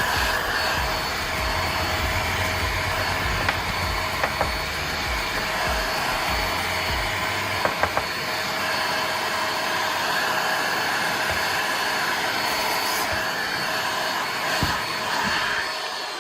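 An electric power-tool motor running steadily at constant speed, a whirring hum with a few sharp clicks in the first half; it winds down at the very end.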